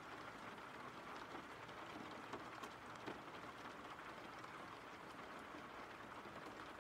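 Steady, soft rain: an even hiss of rainfall with scattered faint drop ticks.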